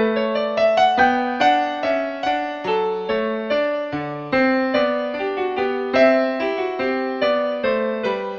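Background piano music: a calm melody of single notes, a few a second, over a lower bass line.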